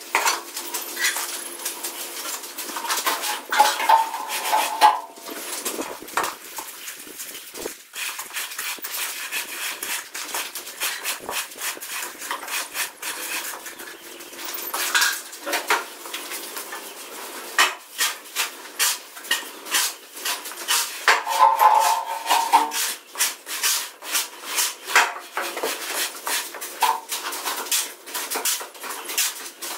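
Steel shovel scraping and chopping through sand-cement mortar on a concrete floor: a continuous run of gritty scrapes and clinks. Two brief pitched sounds come through, about four and about twenty-two seconds in.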